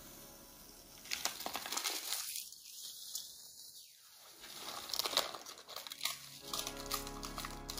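Small paper packet crinkling as it is shaken and squeezed to empty powder into a glass bowl, in two bouts of crackle: one about a second in and another around five seconds in.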